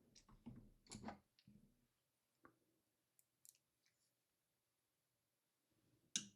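Faint clicks and taps of an NVMe SSD being handled and seated into an enclosure's M.2 slot, with one sharper click near the end.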